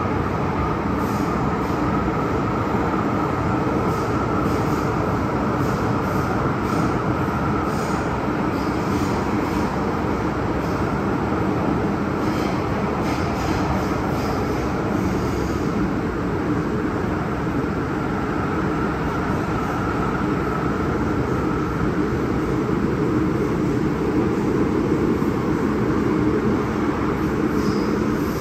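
MTR M-Train electric multiple unit running on the Kwun Tong Line: a steady rumble of wheels and running gear with a faint steady whine that fades out about twenty seconds in.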